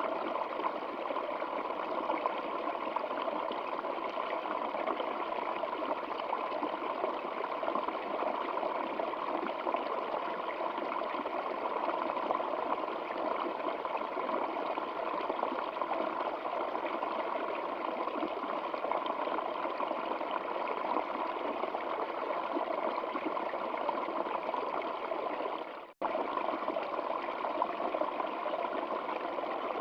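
Steady rushing of flowing stream water. About four seconds before the end it cuts out for a split second and comes straight back.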